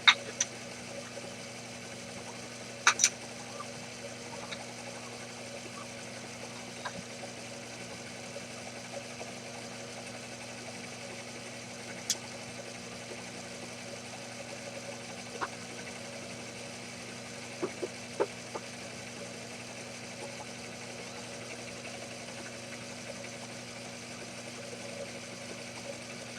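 Small bench milling machine running steadily with a low, even hum, with a few short sharp clicks scattered through, among them a quick pair about three seconds in and a cluster of three near the middle.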